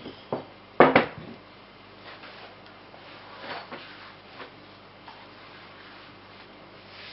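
Wooden rolling pin rolling over dough on a countertop, with a few wooden knocks in the first second, the loudest about a second in. After that, soft rustling as the thin rolled-out sheet of dough is lifted and turned by hand.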